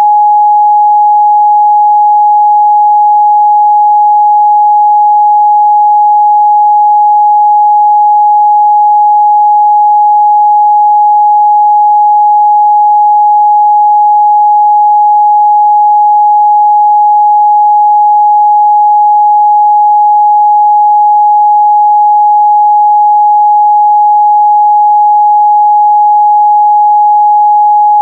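A pure 836 Hz sine-wave test tone held at one steady pitch and level, with no overtones.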